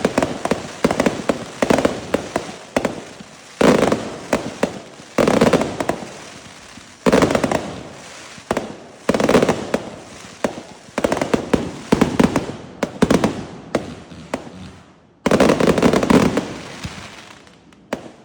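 Fireworks going off in a rapid series: a sharp burst about every two seconds, each followed by dense crackling that fades, the last one dying away near the end.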